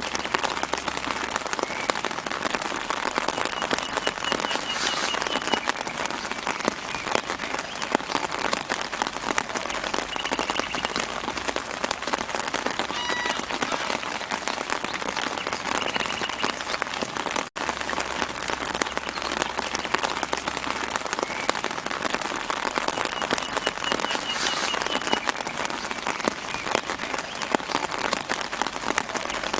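Steady light rain pattering on leaves, with short high bird trills now and then. The sound cuts out for an instant about two-thirds of the way through.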